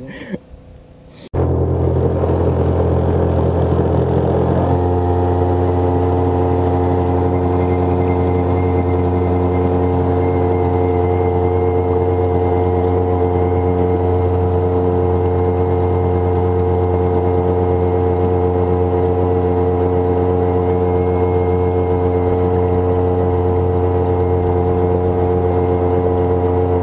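A small boat's engine running steadily under way. About five seconds in, its note shifts and grows fuller, then holds steady. For the first second or so, before the engine comes in, insects buzz.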